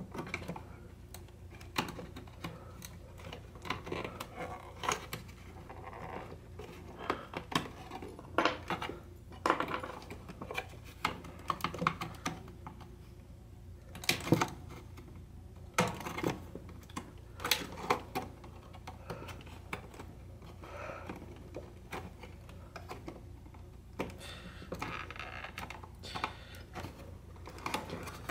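Screwdriver prying plastic control knobs off a radio's shafts: irregular clicks, taps and short scrapes of plastic and metal, over a steady low hum.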